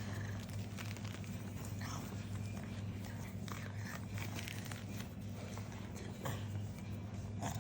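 Blocks of chalk being crushed and crumbled by hand, giving irregular crunches and crumbles, with a steady low hum underneath.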